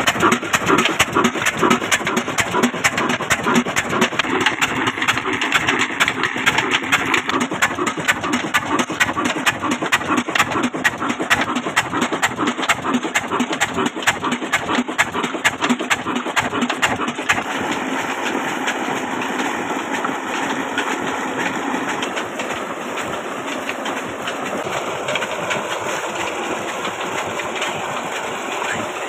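Old 22 HP Ruston Hornsby diesel engine running steadily, driving a tube-well pump, with a rapid, regular knocking beat. From about two-thirds of the way in the beat recedes and a steady rush of water pouring from the pump's outlet pipe comes through.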